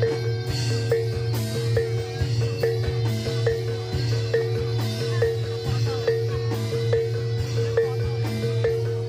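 Live Javanese gamelan music for a barongan dance: bronze metallophones struck in a steady, even repeating pattern, about two to three strokes a second, over a constant low drone.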